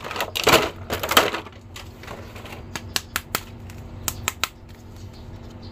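Thin clear plastic blister tray crinkling and crackling as an action figure is pried out of it, then a run of sharp plastic clicks and snaps.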